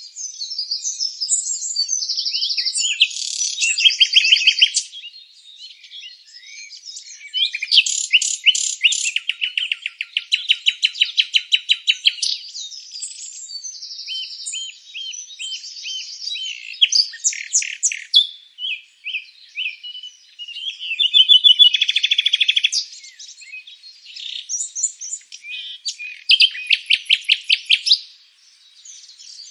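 Songbirds chirping and singing in overlapping phrases with no pause, including fast trills of rapidly repeated notes and quick high chirps.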